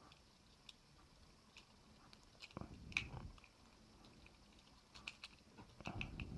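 Faint, scattered small clicks and soft handling knocks of a small plastic toy's parts being fitted back together, with a cluster of clicks about three seconds in and more near the end.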